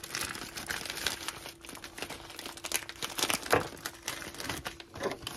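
Irregular crinkling and crackling of food packaging being handled as pepperoni slices are taken out and laid on the sliders, over a faint steady hum.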